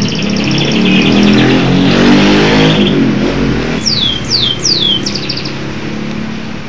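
A domestic canary sings rapid trills and, about four seconds in, three quick falling whistles followed by another trill. Under the first half a motor vehicle's engine passes by, rising then dropping away just before the whistles.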